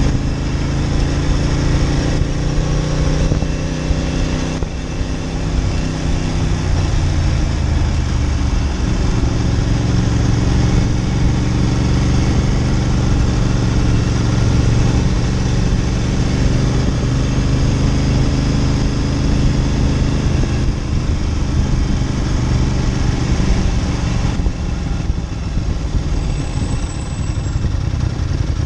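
Ducati Monster 900's air-cooled 90-degree V-twin running under way at an easy riding pace, easing off briefly and picking up again about five seconds in.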